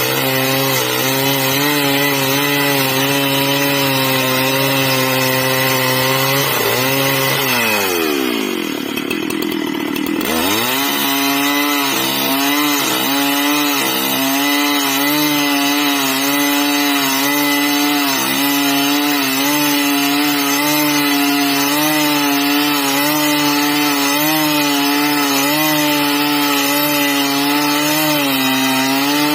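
Two-stroke chainsaw engine running continuously, its pitch wavering slightly. About seven seconds in, the revs fall steeply and climb back up by about ten seconds.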